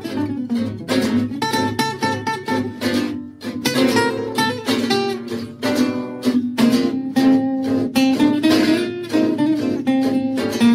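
Background music played on plucked and strummed guitar, a quick run of notes in steady rhythm.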